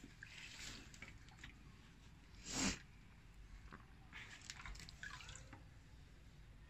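Aquarium filter media being rinsed in a cut-open plastic bottle of aquarium water: faint dripping and sloshing, with one short louder splash about two and a half seconds in.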